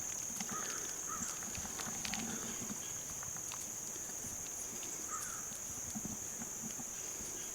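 A steady high-pitched drone from insects such as crickets, with scattered small clicks and rustles from the dirt-covered relic being handled.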